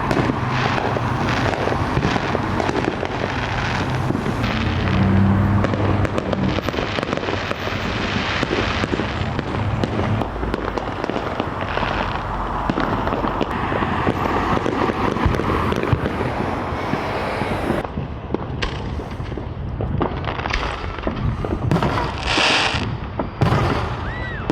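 Fireworks display: a dense, continuous run of bangs and crackling, thinning to separate bursts with short gaps about three-quarters of the way through.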